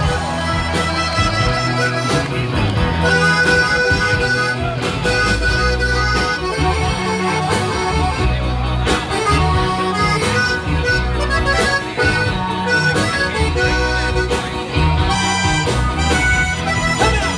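Live Tex-Mex conjunto band playing an instrumental break, the button accordion carrying the melody over electric guitars, bass and drums with a steady beat.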